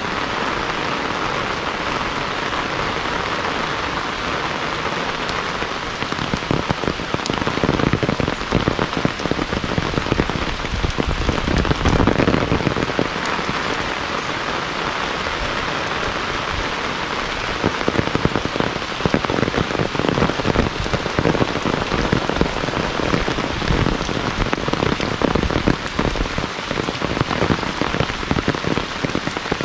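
Heavy rain falling steadily. From about six seconds in, bouts of low, gusty rumble from wind on the microphone come and go over it.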